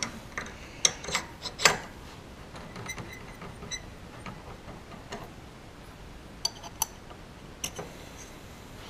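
Light, irregular metal clicks and clinks of a steel 3/8-inch milling collet being handled and fitted up at the mill's spindle, the loudest about two seconds in; a few of the clicks ring briefly.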